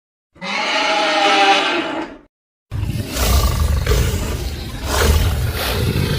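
Monster roar sound effects: a pitched, two-second roar, then after a brief gap a deeper, rougher roar.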